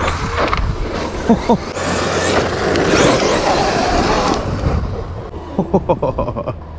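Brushless electric motor of an Arrma Outcast 8S EXB RC truck whining in short rising and falling revs as it drives over dirt and rocks. A dense rushing noise runs through the middle, and there are several sharp knocks near the end.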